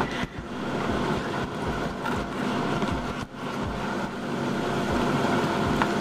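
Steady rumbling noise of a sailing yacht under way, with a faint steady hum running through it.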